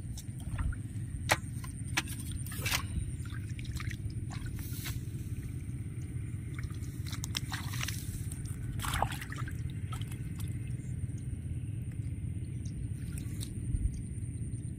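Scattered scrapes, clicks and small water sounds of a net line being handled in shallow water as a climbing fish is worked free of it, over a steady low rumble and a faint steady high whine.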